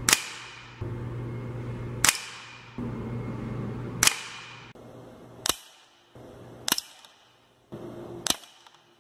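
Gamo CFX .177 air rifle firing pellets at a paper target: six sharp cracks spaced one to two seconds apart, each with a short decaying tail.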